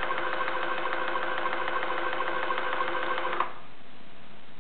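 Watson-Marlow 323Dz peristaltic pump running as its rollers squeeze the tubing to dispense a dose: a steady mechanical hum with an even, rapid pulse, which stops suddenly about three and a half seconds in when the dose is complete.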